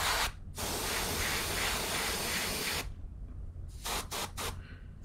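Gravity-feed airbrush hissing as it sprays silver paint onto a lure: a long spray with a short break in the first half-second, stopping a little under three seconds in, then several short puffs near the end.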